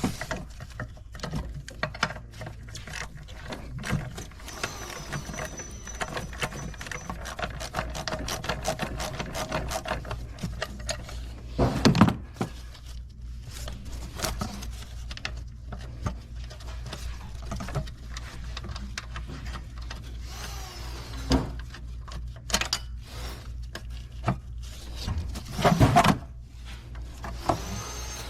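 Hand tools undoing a bolt: a long run of fast ratchet-wrench clicking, then scattered metallic clinks and a few louder knocks, over a steady low hum.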